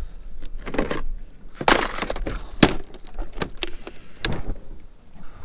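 Plastic clattering and a string of sharp clicks from a plastic tackle crate packed with plastic lure boxes being handled and shifted. The loudest click comes about two and a half seconds in.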